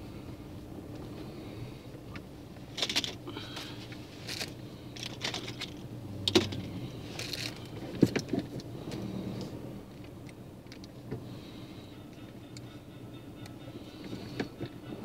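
A road vehicle running at low speed, heard from inside the cabin: a steady low engine and road hum. A run of sharp clicks and rattles comes between about two and a half and eight and a half seconds in.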